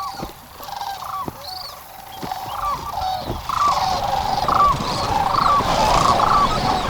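A flock of sandhill cranes calling, many overlapping rising-and-falling calls. They grow denser and louder about halfway through.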